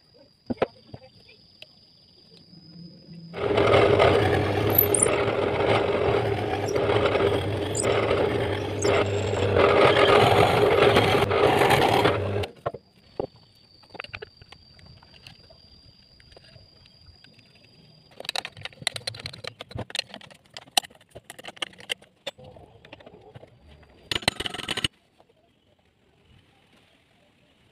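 A workshop power tool runs steadily for about nine seconds with a constant hum, then cuts off. Later come scattered clatters and knocks of metal parts and tools being handled on a wooden bench.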